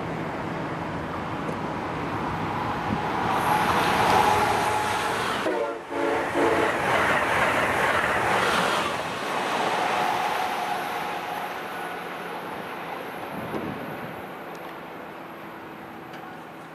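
Amtrak Acela Express high-speed electric train passing at speed: a rush of wheel and air noise builds, peaks as it goes by, then fades as it pulls away. Its horn sounds around the time it passes.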